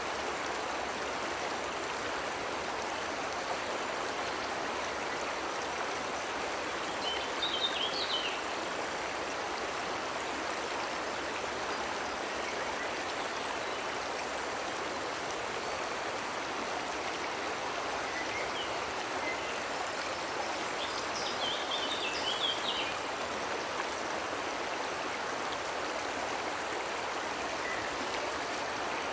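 Steady rush of water from a cascading waterfall and stream. Short bird calls rise above it twice, about a quarter of the way in and again about two-thirds of the way in.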